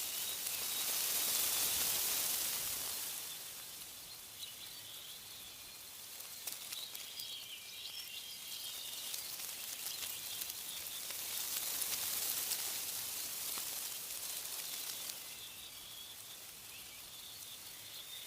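Wind rustling through tree leaves, rising in a gust near the start and again about two-thirds of the way through, with faint bird chirps between the gusts.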